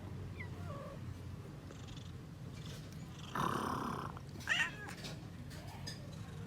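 A cat purring steadily, with a few faint high mews early on and one short, louder mew about four and a half seconds in. Just before that mew there is a brief rustling noise.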